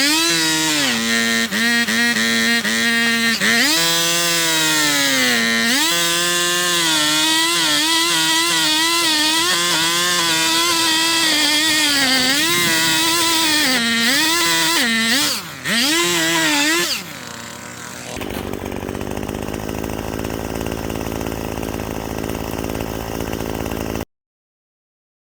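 A power saw's motor running hard and cutting, its pitch sagging under load and climbing back again and again. About 17 seconds in it gives way to a duller, steady noise, which cuts off suddenly near the end.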